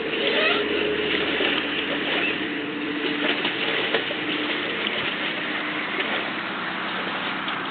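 Steady churning and splashing of water, with scattered small clicks.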